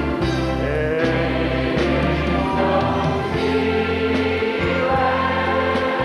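Choir singing with instrumental accompaniment over sustained bass notes that change about once a second.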